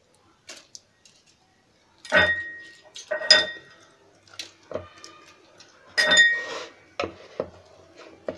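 Sharp clinks against a ceramic bowl, three loud ones about two, three and six seconds in, each ringing briefly, with softer ticks and the crinkle of foil from processed cheese wedges being unwrapped in between.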